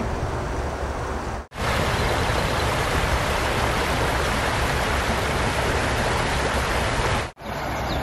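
Creek water rushing over a shallow rocky riffle: a steady, even rush that starts sharply about a second and a half in and cuts off just before the end. Before it there is a shorter stretch of softer outdoor noise with a low rumble.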